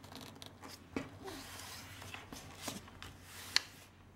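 A magazine page being folded and pressed flat by hand on a table: soft rustling and sliding of paper with a few sharp crinkles, the sharpest about three and a half seconds in.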